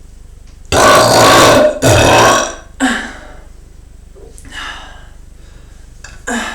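Two long, loud, deep belches back to back, starting about a second in. They are forced 'chest gulp' belches made from swallowed air, with a beastly bass. A few shorter, fainter sounds follow.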